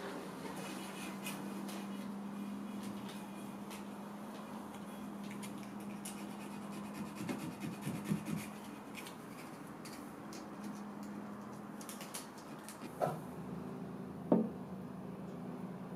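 Hand-sanding the carved, primed surface of a mirror frame with sandpaper: soft scratching and rubbing with scattered light clicks over a steady low hum. Two sharp knocks near the end.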